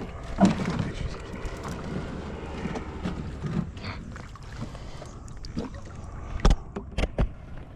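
Kayak and gear knocking and rustling, with irregular knocks against the hull and three sharp knocks near the end.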